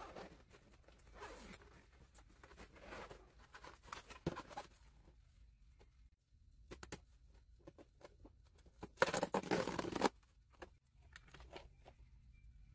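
Handling sounds of unboxing a toy: rustling and zipping at the fabric case and cardboard packaging, with scattered clicks, and one loud rasping rip lasting about a second, about nine seconds in.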